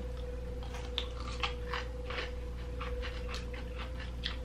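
A person chewing a crunchy kosher dill pickle close to the microphone: irregular wet crunching and mouth sounds, several a second.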